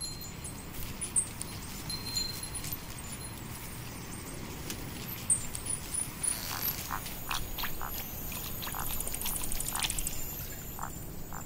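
Nature ambience: a steady background hiss with scattered short animal calls, which come more often in the second half.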